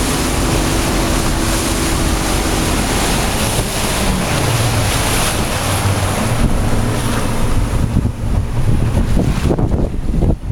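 Wind buffeting the microphone over waves slapping around a fishing boat, with the boat's engine running underneath; the engine's pitch drops about four seconds in as it throttles back.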